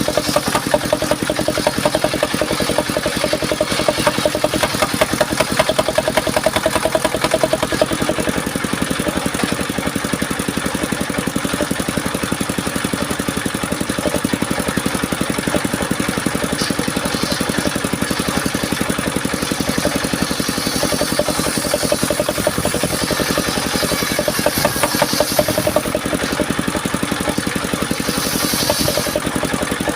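Engine of a homemade circular-saw sawmill running steadily with a fast, even pulse. A higher hiss comes and goes several times as the blade cuts mahogany.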